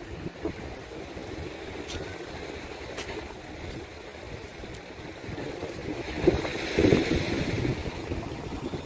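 Calm sea waves washing in, with one wave swelling up about six seconds in and easing off, and wind buffeting the microphone in low thumps.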